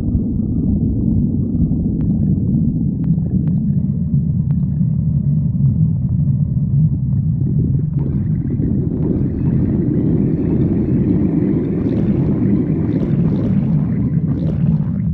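Stomach growling: a continuous low rumble, joined about eight seconds in by higher, irregular gurgling that stops near the end.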